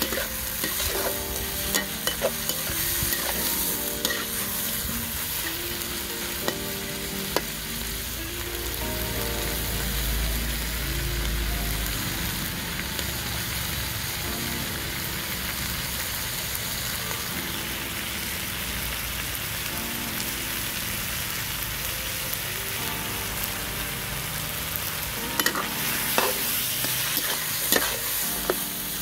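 Meat and vegetables sizzling in a large wok while a metal spatula stirs them, scraping and clanking against the pan. The clanks come mostly in the first several seconds and again near the end, with steadier sizzling in between.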